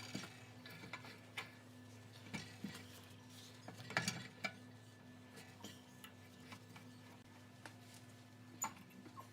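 Scattered light taps and clicks at irregular intervals, the loudest about four seconds in, over a faint steady hum.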